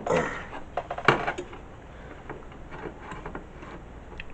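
Clicks, taps and knocks of parts being handled and shifted inside a desktop computer case, the loudest knock about a second in.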